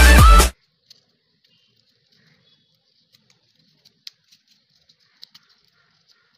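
Electronic music with a heavy beat cuts off abruptly about half a second in. It is followed by faint, scattered paper rustles and light ticks from hands handling cut paper petals and a pencil.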